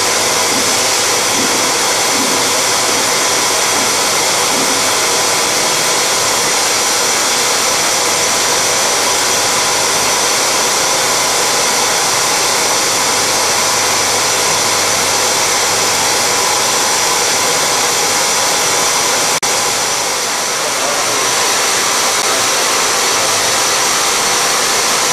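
Steady loud hiss of a chilled compressed-air blow nozzle cooling the cut. Under it run the CNC spindle turning at 3000 rpm and an indexable carbide insert engraving S45C steel, with a few steady tones in the hiss.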